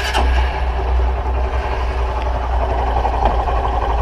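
Honda Fan 125 single-cylinder four-stroke engine idling steadily in neutral. At idle it makes little of the metal-on-metal noise it gives under load, which the owner suspects comes from the cam chain or tensioner, or from pinging on adulterated fuel.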